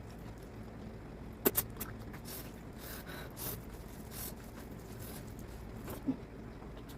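Close-miked eating of mutton fat curry with rice: wet chewing and mouth sounds, with two sharp smacks about one and a half seconds in and another near the end.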